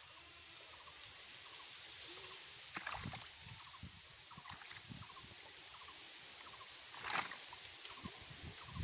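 Shallow muddy stream water trickling past, with a few splashes and knocks as a bamboo kulo basket is worked in the water. The loudest splash comes about seven seconds in.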